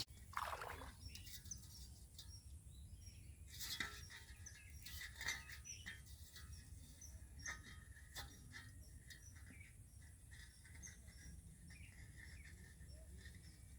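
Faint bird chirps scattered throughout, over a low background hum, with a falling call near the start and a few brief noises about four, five and eight seconds in.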